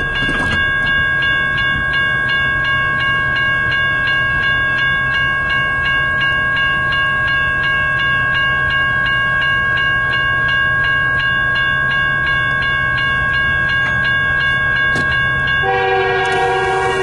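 Railroad grade-crossing warning bell ringing steadily in rapid, even strokes as the crossing signals are active. Near the end, a locomotive horn begins to blow for the crossing.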